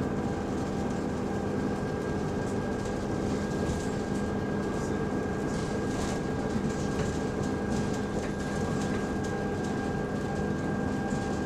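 Bus interior while moving: a steady drone from the engine and cooling fan, with a constant high whine running over it, and light rattles from the bodywork.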